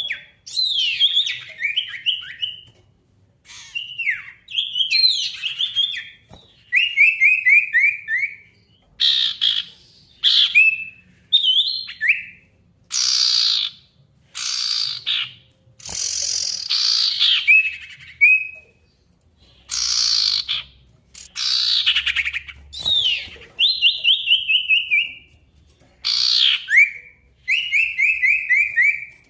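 Male sirtu songbird singing loud and continuously (gacor) in a challenge song to call out rivals. Short phrases come every second or two, alternating falling runs of quick whistled notes with harsh, raspy sweeping calls.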